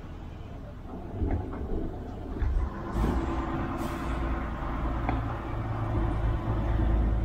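A fishing boat's diesel machinery running with a steady low rumble and hum, growing louder about a second in, with a few light knocks over it.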